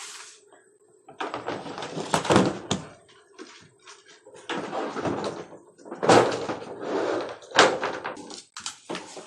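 Plastic panels of a storage box being handled and fitted during assembly: several spells of scraping, rattling and knocking, with a sharp click about seven and a half seconds in.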